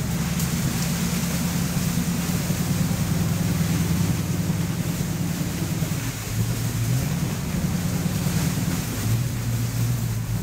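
Engine of the vehicle carrying the hunters and dogs, running steadily as it drives through brush. The low note shifts a little now and then, with wind noise on the microphone.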